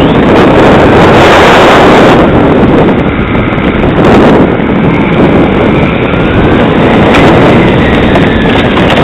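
Tamiya TT-01 electric RC car driving over rough asphalt, heard through its own onboard camera: a loud, overloaded rumble of tyres, drivetrain and wind on the microphone, with a faint whine that rises and falls with the car's speed.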